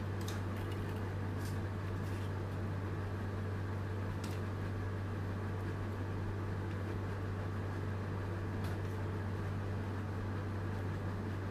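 A steady low mechanical hum, with a few faint light clicks over it.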